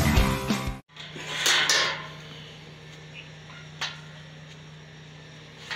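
Intro music with guitar cutting off abruptly under a second in, followed by quiet ambience with a steady low hum, a brief rustling noise and two faint clicks.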